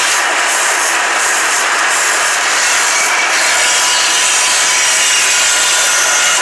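Band saw cutting through a thick block of wood: a loud, steady rasping hiss of the blade in the wood.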